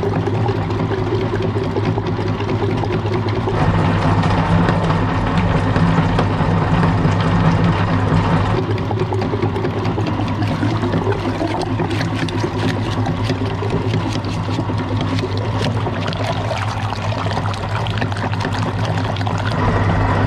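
Meat grinder grinding watermelon: a steady mechanical drone under wet squelching and trickling as the auger crushes the flesh and juice runs out.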